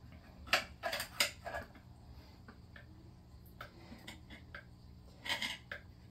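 Light metallic clicks and clinks of a 4L60E transmission's 2-4 band being worked into place over its anchor pin inside the case: a quick run of clicks about half a second to a second and a half in, a few scattered ticks, and another short cluster near the end.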